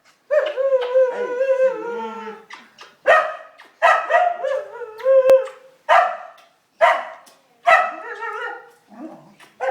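Dog howling and yowling: one long, wavering howl of about two seconds near the start, then a string of shorter howl-barks about once a second.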